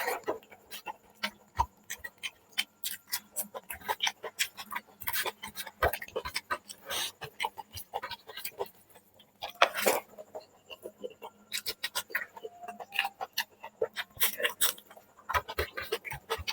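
Close-up eating sounds of chicken curry and rice: chewing and smacking, heard as irregular short wet clicks several times a second, one louder about ten seconds in.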